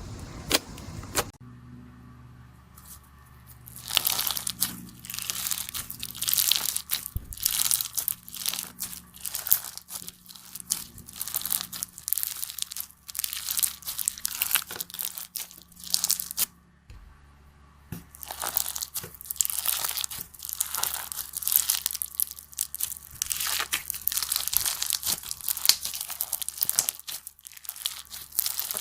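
Slime being squeezed and worked by hand, giving dense crackling, popping and crunching sounds. There are two short pauses: one about two seconds in and one a little past the middle.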